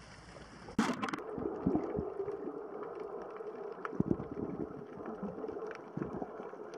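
Underwater sound picked up by a diving camera: a muffled, rumbling wash with gurgles, irregular low thuds and scattered faint clicks. It starts abruptly about a second in.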